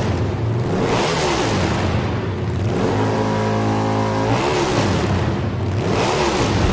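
Engine revving up and down several times in quick rises and falls of pitch, holding a steady high pitch for about a second in the middle.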